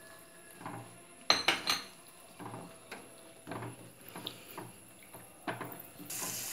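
Wooden spatula knocking and scraping against a small kadai, a sharp knock every half second to second, the loudest cluster about a second and a half in, as cashews, almonds and raisins are stirred in hot ghee. A soft frying hiss comes up just before the end.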